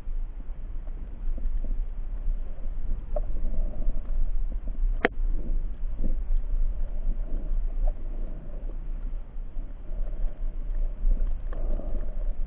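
Muffled underwater sound from a camera in a waterproof housing: a steady low rumble of water moving against the housing, with a few faint clicks and one sharp click about five seconds in.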